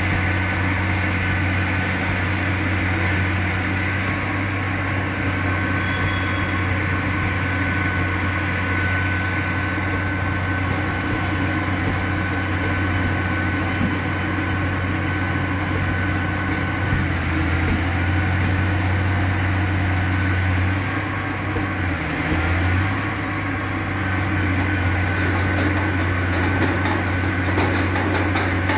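Diesel engine of a Bauer BG 28 rotary piling rig running steadily with a deep hum, briefly dipping in pitch about two-thirds of the way through.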